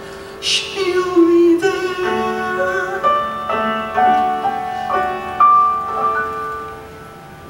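Piano playing a slow instrumental passage of a musical-theatre ballad: single notes and chords struck every half second to a second, each ringing on, the playing dying away about a second before the end.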